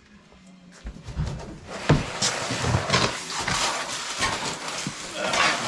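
Stored household goods being handled and shifted: rustling and scraping with knocks, starting about a second in, with the loudest thump about two seconds in.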